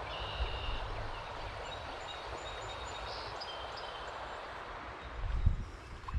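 Small birds chirping and calling over a steady rushing outdoor background, with low wind or handling rumbles on the action camera's microphone, the strongest about five seconds in.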